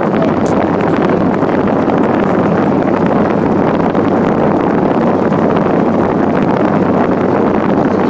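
Holmes fan heater running, its air stream blowing straight onto the microphone held against the grille: a loud, steady rush of air buffeting the mic, with a low hum underneath.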